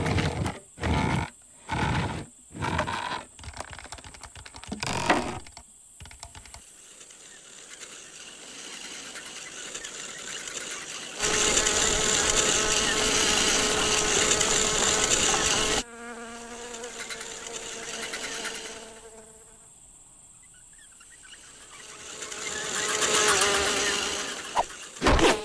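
A fly buzzing, loud for several seconds in the middle and fainter before and after, swelling again near the end. A run of sharp knocks, like wood and stone striking each other, fills the first six seconds, and there is one more knock just before the end.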